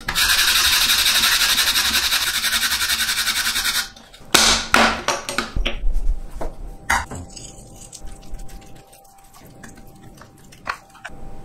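Kohlrabi being grated rapidly on a plastic box grater, a dense scraping for about four seconds. Then a few sharp knocks and clatters, followed by a spoon scraping and stirring grated kohlrabi and flour in a plastic container.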